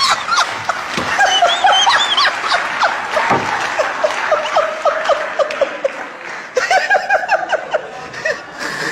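A man laughing hard in quick repeated bursts, easing briefly about six seconds in, then laughing again.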